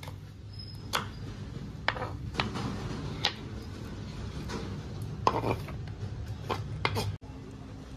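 Kitchen knife knocking on a wooden cutting board while cut red onions are chopped and scraped off onto a plate. There is a handful of sharp, irregular knocks about a second apart, the loudest a little past halfway, and the sound cuts off abruptly near the end.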